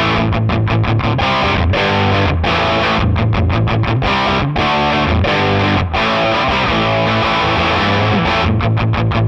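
Distorted electric guitar, a Fender Stratocaster played through a Nux MG300 modelling processor's amp model, playing a rhythmic chord riff with the chords cut off in many short, sharp gaps.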